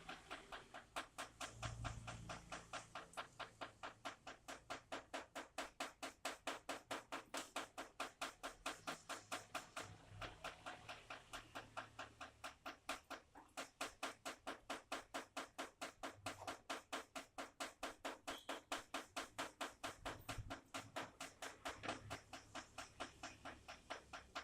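Rainwater drops falling one after another in a steady, even rhythm, about four drops a second.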